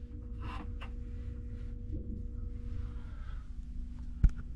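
Steady low machinery hum with a couple of faint steady tones over it, and a single sharp knock about four seconds in.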